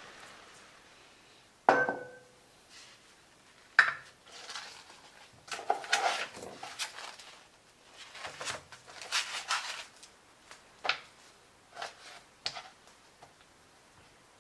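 A sharp knock with a short ring about two seconds in, then plastic wrap crinkling and rustling as a foam meat tray of beef short ribs is unwrapped and handled, and a few light knocks near the end as the ribs are set on a plastic cutting board.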